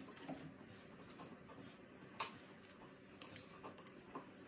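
Grooming scissors snipping hair along the edge of a puppy's ear: a few faint, sharp snips, one about two seconds in and a quicker cluster near the end.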